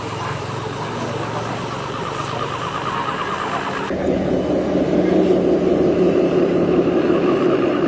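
Radio-controlled tanker truck running, with a steady vehicle sound. About four seconds in, the sound changes abruptly and gets louder.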